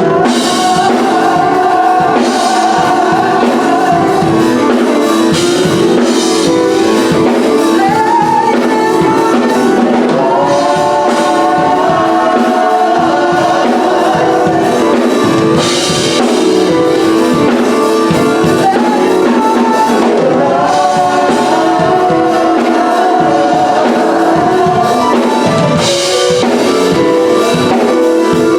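Gospel music with singing and a drum kit, performed by a church music ministry.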